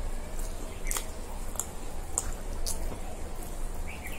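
Two people chewing pizza, with scattered wet mouth smacks and clicks about every half second over a steady low hum.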